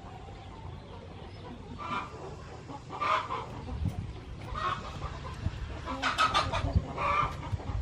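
Chickens clucking: about five short calls spread across several seconds, over a low rumble.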